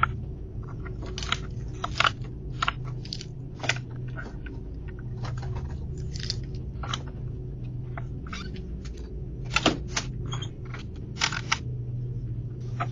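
Irregular sharp clicks and knocks over a steady low electrical hum, in the narrow, tinny sound of a doorbell camera's microphone.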